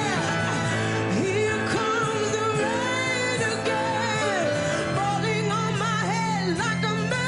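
Music: a band playing a song, with a wordless melodic line that bends and glides over sustained chords.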